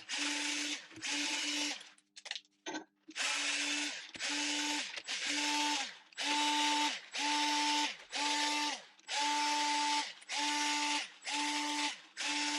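Battery power tool, an electric ratchet or drill driver, whirring in about a dozen short bursts of under a second each, with a brief pause about two seconds in. It is spinning out engine block bolts with 13 mm and 10 mm sockets.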